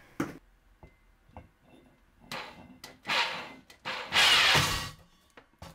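Steel core bit being screwed onto the greased threaded spindle of an RT-160 core drill: several short scraping, rubbing noises of metal and handling. The longest and loudest is a little over four seconds in, with a short click near the end.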